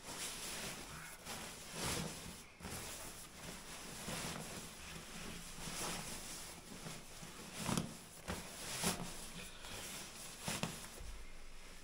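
Soft rustling of a sleeping bag being packed away by hand and stuffed into its stuff sack, with a few brief, slightly louder swishes of the fabric.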